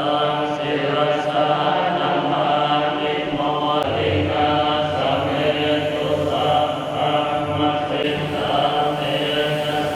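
Buddhist monks chanting in Pali together, a steady monotone recitation without pauses.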